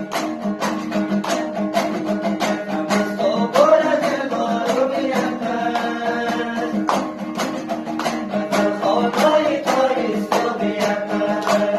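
Afghan folk music: a two-string dambura strummed in a steady rhythm, with handclaps keeping the beat throughout. Voices sing a sung line about a third of the way in and again near the end.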